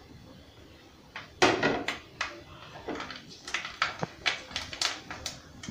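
Kitchen utensils and dishes clinking and knocking in an irregular run of sharp strokes, starting about a second and a half in.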